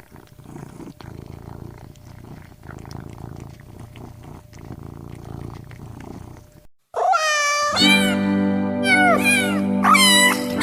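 A domestic cat meowing several times, each meow falling in pitch at its end, over background music with sustained notes, starting about seven seconds in. Before that, faint rustling with a steady hum.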